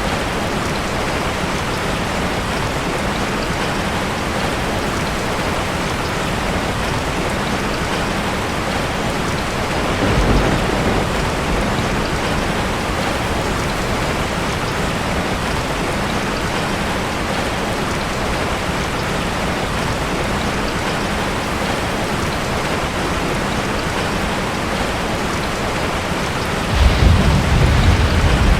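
Steady heavy rain falling, with a short low thunder rumble about ten seconds in and a louder, longer rumble of thunder near the end.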